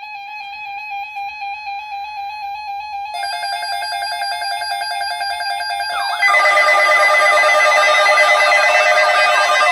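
Electronic emergency-alert tones announcing a tornado watch: a rapidly pulsing steady tone, joined by a second, higher pulsing tone about three seconds in. About six seconds in, the sound turns louder and fast up-and-down siren-like warbles are layered over the steady tones.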